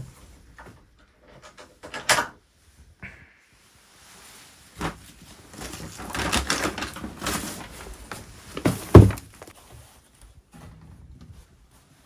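A door being opened and shut on arriving home: scattered clicks and knocks, a stretch of rustling, and a heavy thud about nine seconds in, the loudest sound in the stretch.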